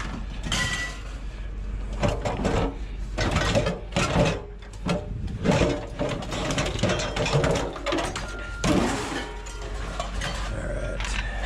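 Scrap metal pieces being handled: irregular clanking and rattling of metal against metal, with a few brief ringing tones from struck pieces.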